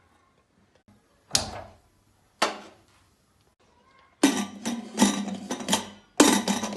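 Kitchen clatter of utensils and dishes: two separate sharp knocks, then a longer run of rapid clattering and another burst near the end.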